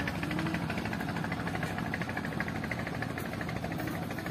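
Boat engine running steadily on the channel, with a fast, even beat.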